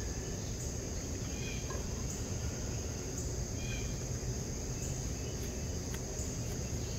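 Outdoor ambience: a steady high insect trill over a low, even rumble, with a couple of faint short chirps.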